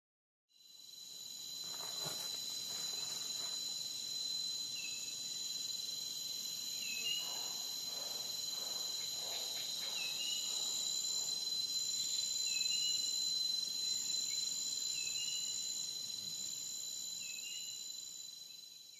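Steady high-pitched insect chorus that fades in at the start and out at the end, with a faint short chirp repeating every two to three seconds.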